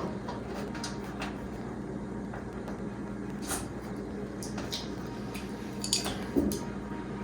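Scattered light clicks and taps of hand work on a car, most likely fitting a side mirror, with a few louder knocks about six seconds in. A steady low hum sits underneath.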